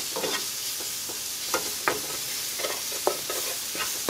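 Diced vegetables sautéing in oil in a nonstick skillet, a steady sizzle, while a wooden spoon stirs them with short scrapes against the pan every fraction of a second.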